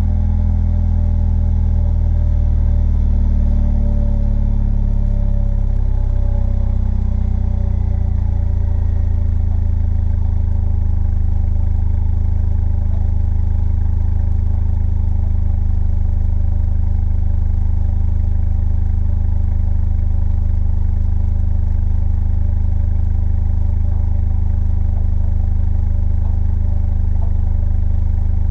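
The 2015 Mercedes CLA45 AMG's turbocharged 2.0-litre four-cylinder is idling through the stock exhaust, still warming up after a cold start. The idle eases down slightly over the first several seconds, then holds steady.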